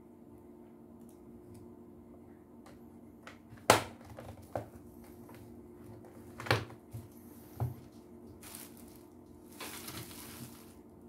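Hard plastic clicks and knocks as a vacuum cleaner's housing is handled and fitted back together, the sharpest about four seconds in, then a short rustle near the end.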